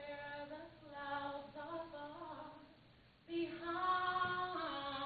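A woman singing unaccompanied into a handheld microphone, holding long notes. She breaks off briefly a little under three seconds in, then comes back in louder with a sustained phrase.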